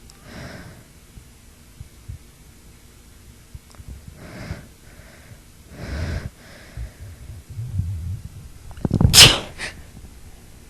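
A woman sneezing: a few softer breathy build-up sounds, then one loud, sharp sneeze about nine seconds in with a short breath just after it.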